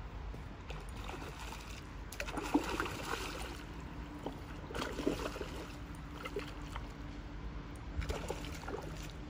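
Hooked golden trout thrashing at the water's surface, splashing in three short bursts about two and a half, five and eight and a half seconds in.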